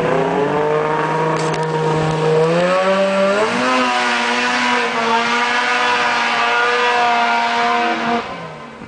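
Snowmobile engine with an aftermarket MBRP exhaust can, loud and revving up about three seconds in, holding high revs, then dropping away sharply near the end.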